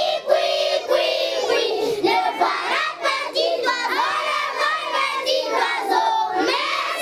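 A group of young children singing together in unison, many voices at once.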